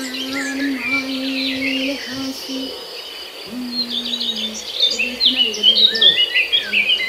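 Small birds chirping in many quick, high calls, densest and loudest in the second half. Beneath them is a low held hum that steps down in pitch a few times.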